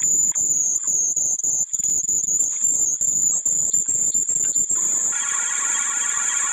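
Sped-up, distorted logo-remix audio: a steady high whine over choppy, stuttering noise, with a pitched tune coming in about five seconds in.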